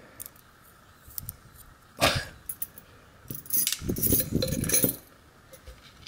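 Small metal clicks and rattles from brass lock pins and a key ring as a Master Lock 27 padlock core is taken apart. There is one sharp click about two seconds in, then a cluster of clattering from about three to five seconds in as the key pins spill out.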